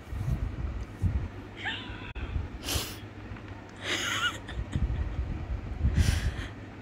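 A young woman laughing hard, in four breathy bursts with high-pitched squeals and gasps.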